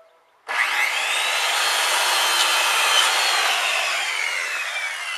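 Corded circular saw starting about half a second in, whining up to speed and cutting across a clamped wooden board. From about three seconds in it winds down in a falling whine as it fades.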